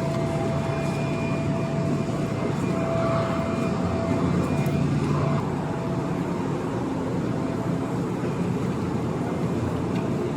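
Electric commuter train running at a station platform: a steady mechanical drone with a motor whine that fades out about halfway through.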